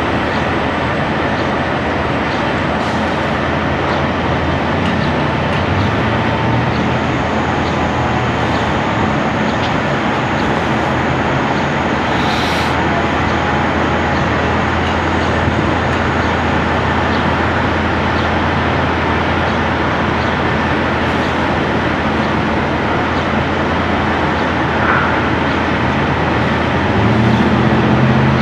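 Steady road traffic and engine noise with a constant low hum, and a car passing close by near the end.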